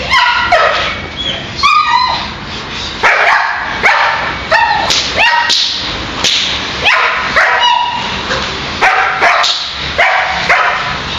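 Shepherd dog barking repeatedly, in quick runs of two or three barks, at a man agitating it during protection training.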